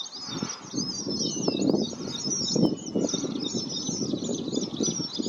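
A flock of red avadavats chirping together: many thin, high, rapid chirps overlapping without a break. A low, uneven rumble runs underneath and swells in the middle.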